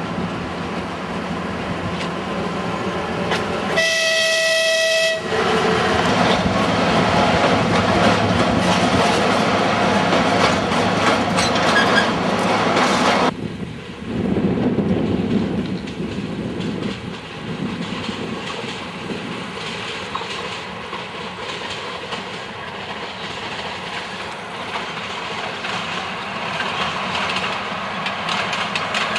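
TU7 narrow-gauge diesel locomotive hauling coaches past: one horn blast of about a second and a half, about four seconds in, over the loud running of the engine and wheels. After a sudden break about thirteen seconds in, the train is heard more quietly as it runs on at a distance.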